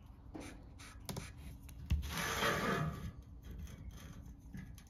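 A marker drawn along a steel sheet, tracing out a layout line: a knock about two seconds in, then one scratchy stroke lasting about a second, with a few light clicks around it.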